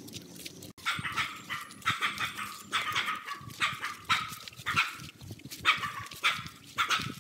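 A dog barking repeatedly, about two barks a second, starting about a second in.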